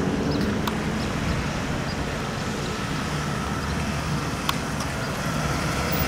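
A small cutaway shuttle bus drives up and passes close by, its engine and tyres making a steady road noise.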